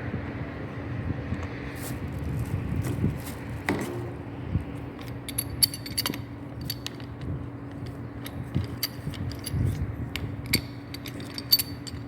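Scattered small clicks, taps and scrapes of plumbing fittings and tools being handled, thicker from about five seconds in, over a steady low hum.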